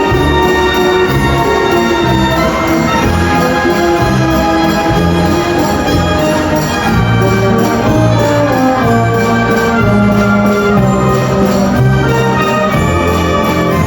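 Music playing steadily, many held notes changing over a repeating bass line.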